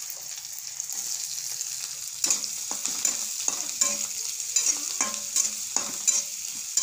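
Chopped onions and green chillies sizzling in hot oil in a metal kadai, with a spatula scraping and knocking against the pan as they are stirred, in quick strokes about two or three a second from about two seconds in.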